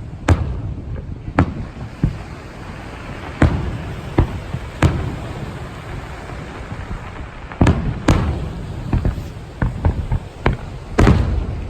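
Aerial fireworks shells bursting: a series of sharp bangs at uneven intervals, with a quicker run of bangs in the second half, over a steady low background noise.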